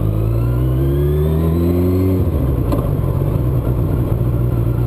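Suzuki Bandit 1200S inline-four engine pulling under acceleration, its pitch rising for about two seconds, then dropping suddenly at an upshift and running on steady at lower revs, with wind rushing over the microphone.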